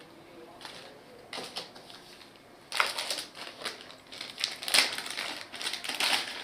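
Plastic packaging crinkling and rustling as it is handled: a few short bursts, then steady crinkling through the second half.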